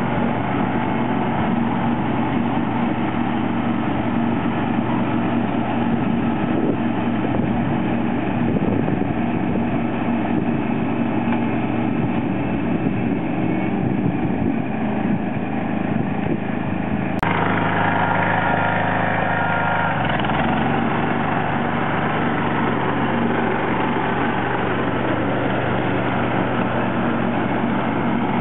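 John Deere 316 lawn tractor engine running steadily while mowing with the mower deck engaged. About two-thirds of the way through there is a sharp click and the sound changes abruptly.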